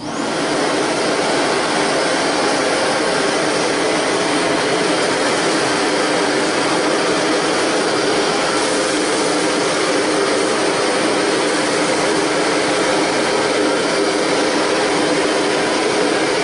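All-metal canister vacuum cleaner with a two-fan motor coming on suddenly and running steadily at full suction, a loud even rush of air with a faint steady whine.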